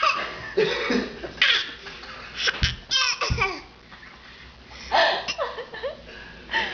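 A baby's forced, imitation coughs, copying an adult's cough, mixed with laughter, in several short bursts with pauses between.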